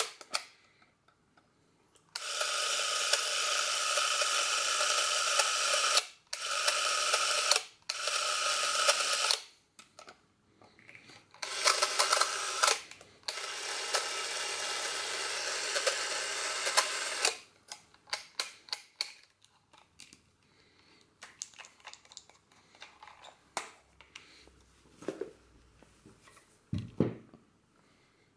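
The motor of a Braun Nizo S8 Super 8 film camera runs steadily in about five spells of one to four seconds, each starting and stopping abruptly. After that come scattered small clicks from the camera's switches and controls being handled.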